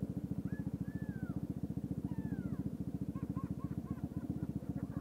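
Honda PCX150 scooter's single-cylinder engine idling with an even, rapid low pulse, picked up through a helmet-mounted microphone. Over it, faint children's voices laughing and yelling, with a quick run of short laughs about halfway through.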